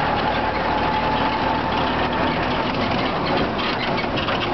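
Auto rickshaw's small engine running steadily with road noise, heard from inside the open cab while riding, with a faint whine that fades out about two seconds in.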